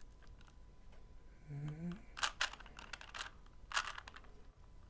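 Shiroi Rubik's Cube being turned by hand: two short runs of sharp plastic clacks as the layers are twisted. A brief murmur from the solver comes about a second and a half in.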